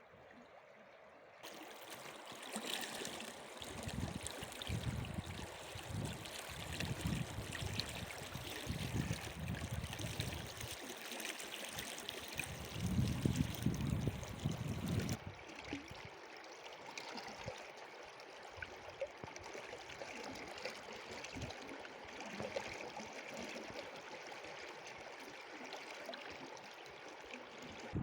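Steady rushing of a stream's flowing water, with irregular low rumbles over the first half. Just past the middle the sound changes abruptly and loses its highest hiss.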